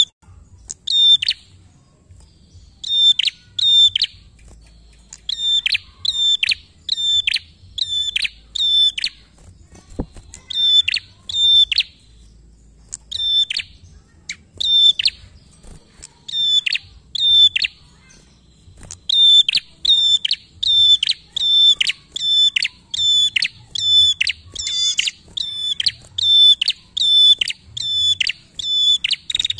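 Prenjak calling: sharp, high chirping notes repeated about twice a second in bursts separated by short pauses, settling into an unbroken run in the second half, with one quick warble near the end.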